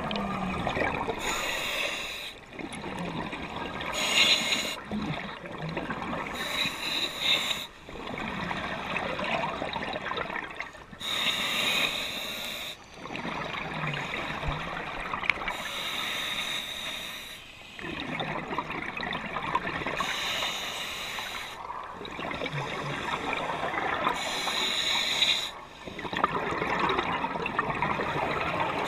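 Scuba diver breathing through a regulator underwater: hissing inhalations alternating with bubbling exhalations, repeating in slow cycles several seconds apart.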